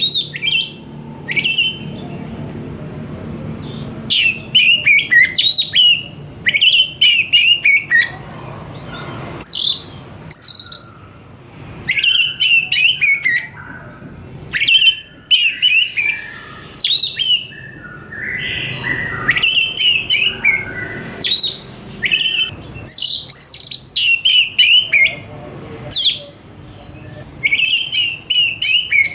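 An oriental magpie-robin (kacer) singing in full, vigorous song: rapid, varied phrases of sharp whistles and chattering notes, one bout every second or two.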